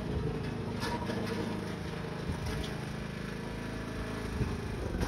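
Riding lawn tractor's engine running at a steady speed as the tractor drives along.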